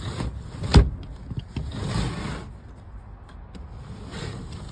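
A cabinet's roll-up tambour door being slid open by hand. There is a sharp knock a little under a second in, then a rushing slide of the slats around two seconds in and again near the end.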